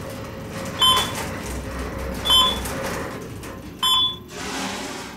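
Schindler elevator's floor-passing beep: a short electronic tone sounding three times, about a second and a half apart, as the car climbs past each floor. Under it is the steady low rumble of the moving car, which dies away near the end as the car stops.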